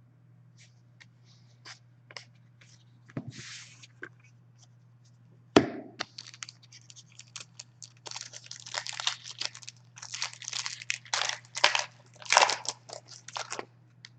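Trading card handling with a couple of sharp knocks, then a card pack's wrapper crinkling and tearing open in repeated crackly bursts over the last several seconds.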